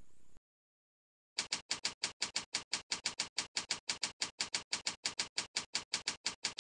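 Keyboard keystroke clicks, rapid and evenly paced at about seven a second, as a command is typed; they start after a second and a half of silence.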